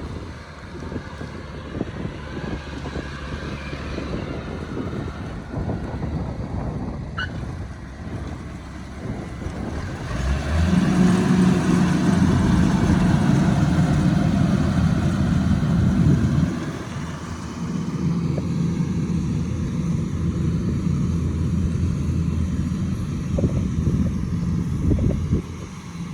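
Engine of a rice harvesting machine running steadily. It grows louder, as if revving up, about ten seconds in, and drops back about six seconds later.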